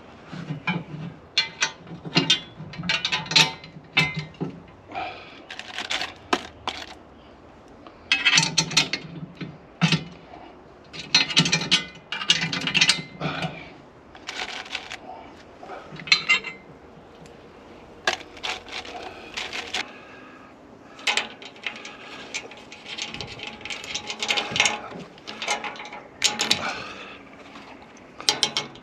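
Irregular metallic clinks and clanks of bed-rack parts and bolts being handled and fitted, coming in scattered clusters with short pauses between them.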